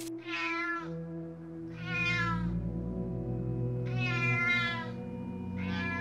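Domestic cat meowing four times, about two seconds apart, over soft steady background music.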